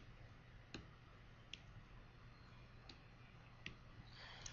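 Near silence with a faint steady low hum and a handful of short, faint clicks spread out, roughly one a second.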